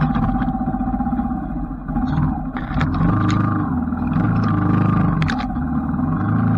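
Kawasaki KLR250's single-cylinder four-stroke engine pulling through mud, its revs rising and falling several times, with a few sharp clicks and knocks from the bike over the ruts.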